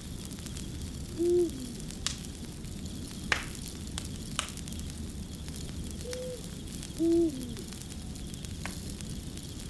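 Wood fire crackling with scattered sharp pops over a steady low rumble. An owl hoots: two loud, short, low hoots about a second in and about seven seconds in, with a fainter hoot just before the second.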